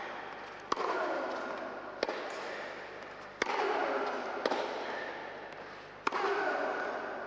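Tennis rally: racket strikes on the ball, five sharp pops roughly every one and a half seconds, each ringing in the reverberant indoor hall.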